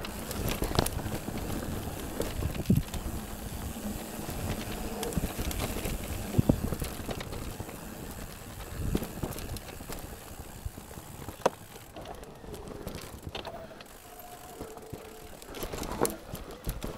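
Mountain bike being ridden on a trail: steady tyre and wind noise with irregular sharp knocks and rattles as it goes over bumps.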